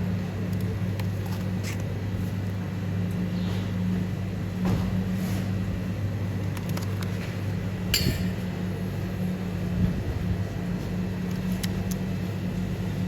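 A steady low hum with a few short clicks and knocks over it.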